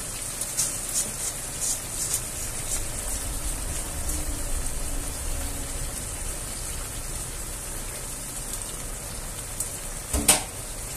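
Chorizo, red pepper and tomato sauce sizzling in hot olive oil in a frying pan as freshly rinsed, wet rice is tipped in from a mesh strainer: a steady crackling sizzle. A single sharp knock comes about ten seconds in.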